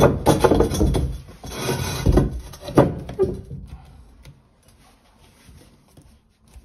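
Plastic sink drain elbow being shifted and pushed into its slip-nut fitting at the wall: rubbing, scraping and small knocks, stopping about three seconds in.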